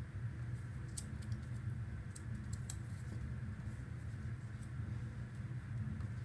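Light clicks and crackles of paper strips being handled and pressed onto a paper plate, a few scattered clicks with a cluster near the middle, over a steady low background hum.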